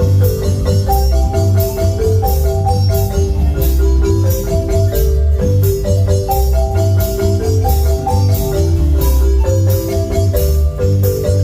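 Marimba band playing: quick runs of struck marimba notes over a deep bass line, with a steady high percussion beat.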